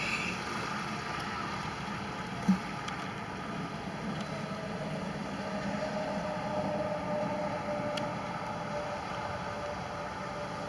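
Steady outdoor background noise during a night thunderstorm, with a faint steady hum through the middle and one brief soft knock about two and a half seconds in.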